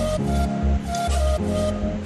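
Background music: sustained melodic notes, partly flute-like, over a strong, steady bass beat.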